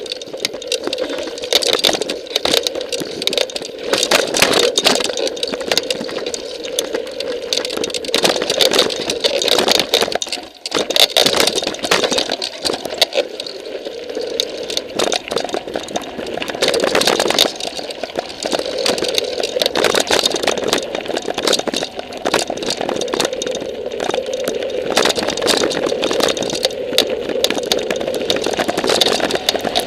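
Mountain bike riding over a rocky dirt trail: a steady, loud clatter and rattle of the bike and its tyres jolting over stones, with no let-up except a brief lull about ten seconds in.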